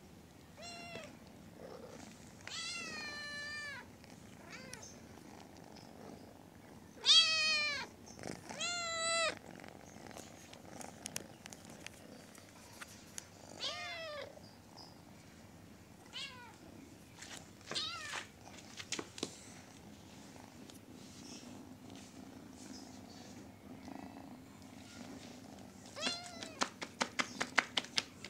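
Kitten meowing about six times, short high calls with gaps between, the loudest about seven seconds in. In the second half a low steady purr runs under scattered short clicks, with a quick run of clicks near the end.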